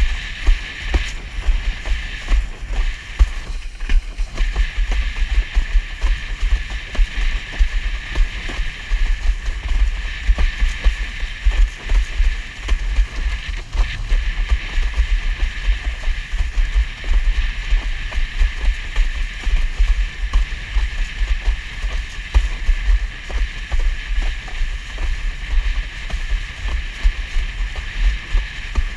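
Wind buffeting the GoPro's microphone as a windsurf board sails fast in strong wind: a heavy, fluttering low rumble throughout, over a steady hiss of water rushing past the board through the chop.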